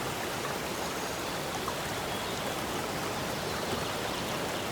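Steady, even rushing noise, like running water, with no rhythm or tone.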